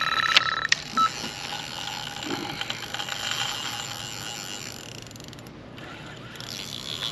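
Carp fishing bite alarm sounding a fast, near-continuous run of beeps that cuts off under a second in, with a sharp click just before it stops and one short beep just after.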